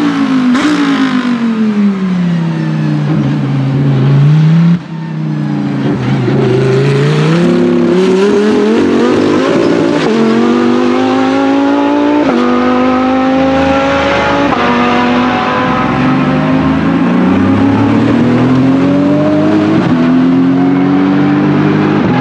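Lamborghini Huracan GT3 race car's V10 engine passing, its note falling steadily in pitch over about four seconds. After a sudden break, a race car engine accelerates away, climbing through several upshifts.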